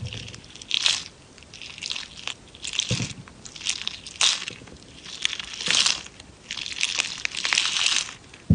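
Jelly being popped and squished, making short crunchy, crackly bursts about once a second, with a couple of soft low thumps.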